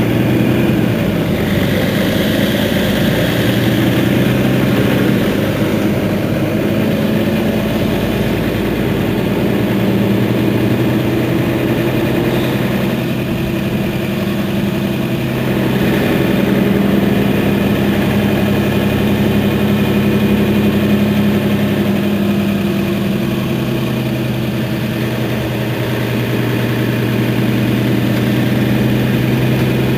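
A Mercedes-Benz Citaro facelift city bus's diesel engine idling steadily at standstill, with a low, even hum whose pitch and level shift slightly a few times.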